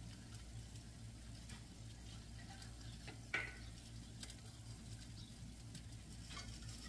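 Naan dough frying in oil in a cast-iron skillet: a faint, steady sizzle with scattered small crackles over a low hum. About a third of the way in there is a single brief sharp sound, the loudest moment.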